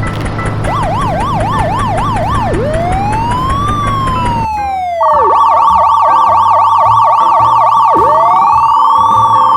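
Electronic emergency-vehicle siren: a fast yelp changing to a slow rising and falling wail, over a low rumble for the first few seconds. About five seconds in, a loud steady horn-like tone joins as the yelp and wail cycle repeats.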